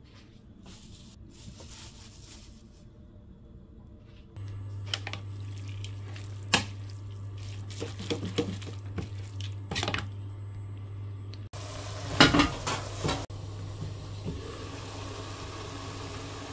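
A spoon clinks and scrapes against a bowl while soaked glass noodles are stirred together with seasoning, the loudest knocks coming about twelve seconds in. A steady low hum begins about four seconds in, and near the end a pan of glass noodles and shrimp sizzles steadily on the stove.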